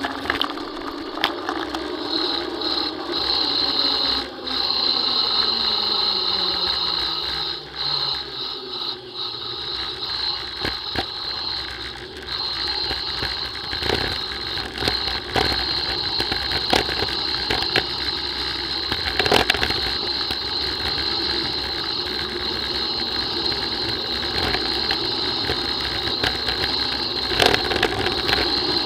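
Mountain bike coasting downhill on a rough road: the rear freehub ticks continuously as a steady high buzz, with rattles and knocks from the bike over bumps. A low hum falls slowly in pitch over the first nine seconds.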